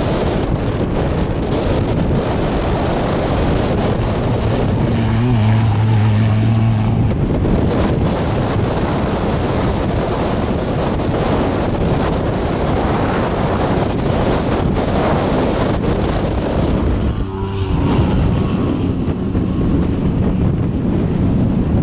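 Off-road race truck engines running at speed, heard through heavy wind buffeting on the microphone. A steady engine drone stands out about five seconds in for about two seconds, and another comes up near the end.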